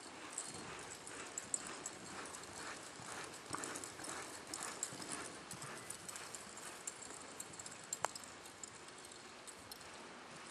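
Hoofbeats of a reining horse loping on arena sand, a soft, even rhythm that is loudest about four seconds in and fades toward the end. A single sharp click about eight seconds in.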